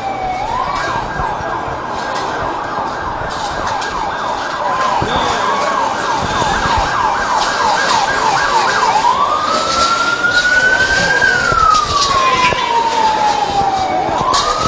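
Emergency vehicle sirens: a fast, repeating yelp over a steady high tone for most of the first nine seconds, then a slow wail that rises, falls and starts rising again near the end.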